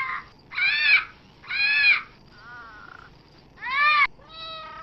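Green parrot squawking: three loud, harsh, arching squawks about half a second each, with a fainter call between the second and third.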